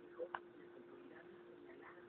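Faint steady hum with two light clicks close together a quarter of a second in.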